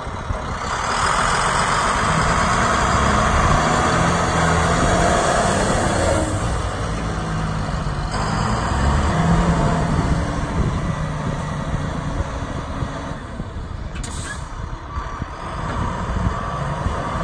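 Volvo A30E articulated dump truck's diesel engine running hard to drive the hydraulics as the dump body tips up, with a brief hiss about fourteen seconds in. Near the end a reversing alarm starts beeping.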